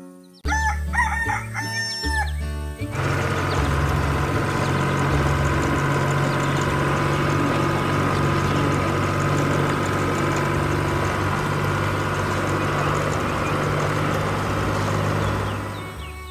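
Rooster crowing about half a second in, over stepped low background-music notes, lasting a couple of seconds. Then a steady vehicle engine drone runs until it fades near the end.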